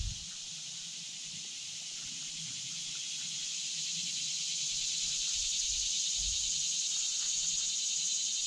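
Chorus of summer insects: a steady, high-pitched buzzing drone that swells over the first few seconds and holds, with a faint low knock at the very start.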